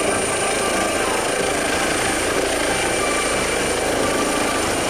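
Air ambulance helicopter lifting off and climbing: steady rotor and engine noise with a constant high whine.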